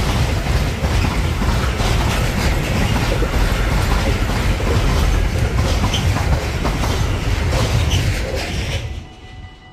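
A train passing close by on electrified track, its wheels rumbling and clattering over the rails. The sound drops off sharply about nine seconds in as the end of the train goes by, then fades.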